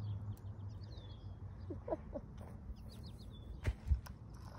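Small birds chirping repeatedly in short high notes and quick downward-sweeping calls. Two dull knocks close to the microphone, a fraction of a second apart, near the end.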